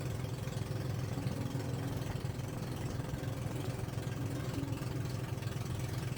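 Boat engine running at a steady speed, a continuous low drone.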